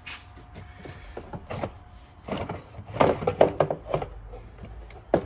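Irregular knocks and clunks of car-audio gear and trunk panels being handled and set down, with a cluster of sharper knocks about three to four seconds in.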